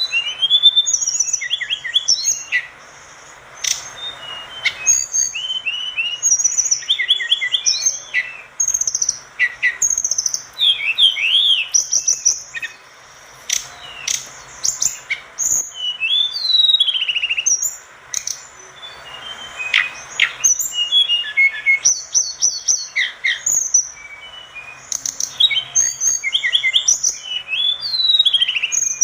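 Tledekan gunung singing in full, busy song: quick varied phrases of high whistled notes, rising and falling sweeps and trills, coming in bursts with short pauses between.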